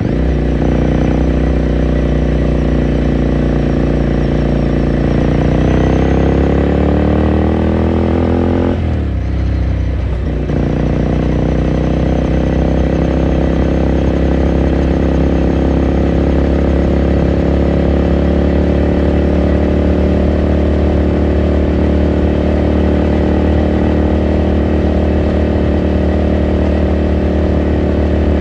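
Ducati Scrambler Sixty2's 399 cc air-cooled L-twin engine under way: its pitch climbs for a few seconds, drops sharply with a gear change about nine seconds in, then picks up again and settles into a steady cruise.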